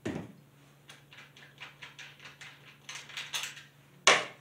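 Small metal clicks and clinks from a chainsaw plug wrench and the clutch-cover nut just undone with it, handled and set down on the table: a sharp click at the start, a run of light clicks, and another sharp click about four seconds in.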